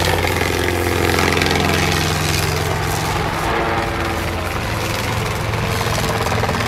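A light helicopter's engine and rotor running steadily as it flies low over open ground, a loud, even sound with no big changes.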